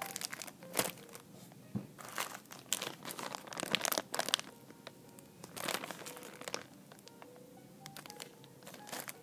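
Clear plastic zip-top bags crinkling as the squishy toys packed in them are handled and squeezed, in bursts over the first several seconds. Faint music with held notes plays underneath and is heard more plainly near the end, once the crinkling dies down.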